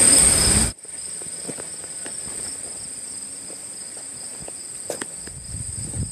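Steady high-pitched insect buzzing, with scattered faint clicks and steps. A loud rushing noise cuts off abruptly under a second in.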